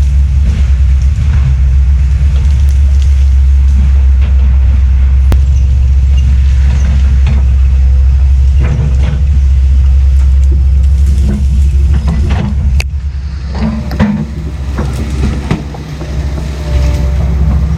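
Heavy land-clearing machinery's diesel engine running steadily with a deep drone, with frequent sharp cracks and knocks over it. It eases off for a few seconds about two-thirds of the way through, then picks back up.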